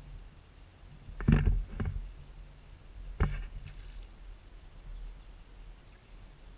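A hooked walleye being played right beside a small boat: a few sharp knocks and splashes, the loudest about a second in and another about three seconds in.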